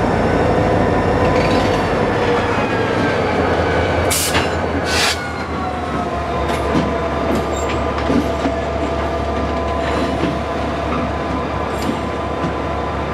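Freight train moving slowly under a diesel locomotive, with its engine running steadily and wheel flanges squealing thinly on the track. Two short hisses about four and five seconds in, and a few clanks and clicks from the cars.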